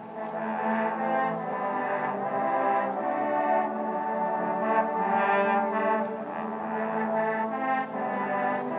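A large university marching band's brass section playing held notes in full, sustained chords that move every second or so.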